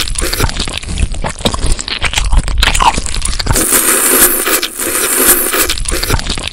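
Close-miked mukbang eating sounds of noodles: wet, clicky chewing and smacking, with a long hissing slurp a little past the middle before the chewing picks up again.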